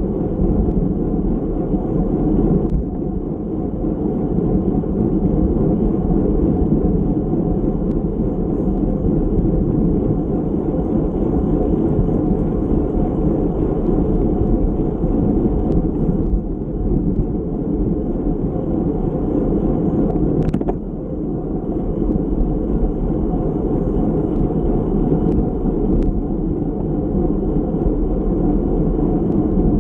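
Wind rushing steadily over a bike-mounted action camera's microphone at racing speed, mixed with tyre and road rumble. A few sharp clicks come through, one in the middle and one near the end.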